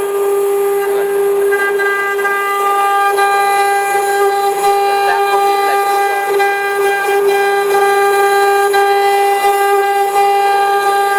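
CNC engraving machine's spindle running with a steady high-pitched whine as the machine carries on with its engraving job, resumed after a power cut.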